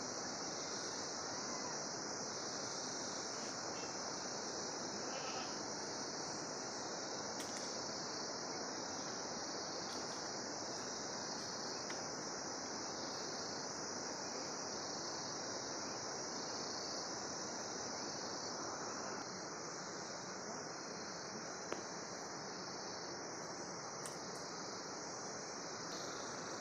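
A steady, high-pitched insect chorus that runs unbroken over a low background hiss, with one brief click about three-quarters of the way through.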